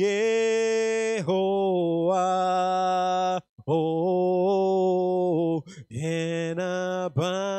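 A man singing slowly and unaccompanied into a microphone, a worship song in long held notes with a slight waver, in three long phrases and then shorter ones near the end.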